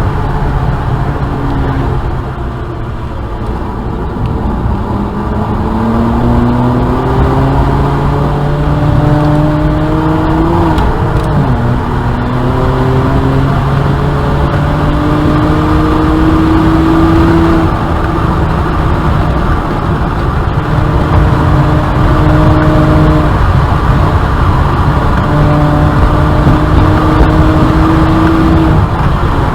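BMW N54 twin-turbo inline-six running under load, its pitch climbing through the revs. It drops sharply about 11 seconds in as it shifts up, then climbs again in steps. There is a lighter stretch near the start as the throttle eases.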